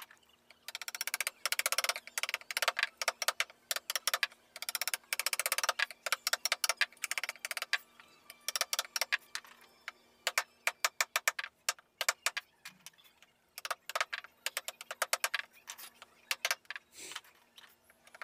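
Small hammer tapping a wood-carving chisel into a wooden panel: quick runs of light, sharp taps, several a second, with short pauses between runs.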